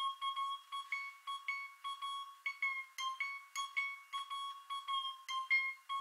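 Background music: a plucked string instrument picking the same high note over and over, about three notes a second.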